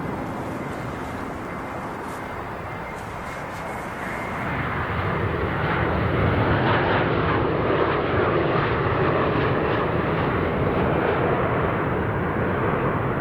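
Jet aircraft engines making a steady roar that grows louder about four seconds in and stays loud, easing a little near the end, as an aircraft passes.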